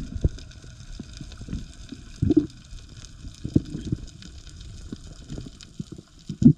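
Underwater camera recording: water moving against the housing, with irregular low thumps and knocks, a louder one about two seconds in and another near the end, over a faint steady hiss.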